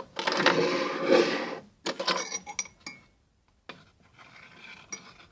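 A spoon scraping and clinking in a dish while a glue-based slime mixture is stirred: a loud scrape lasting nearly two seconds, then shorter scrapes and clinks, and softer stirring near the end.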